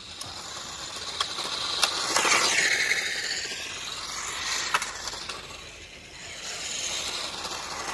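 Upgraded toy-grade RC car with a brushed sprint motor driving fast on tarmac: motor whine and tyre noise build as it nears, dip in pitch as it passes about two and a half seconds in, fade, then build again near the end. A few sharp ticks are heard along the way.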